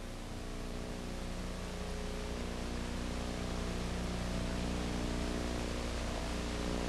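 Front-end loader's engine running steadily, a low droning hum under a hiss, growing a little louder over the first few seconds.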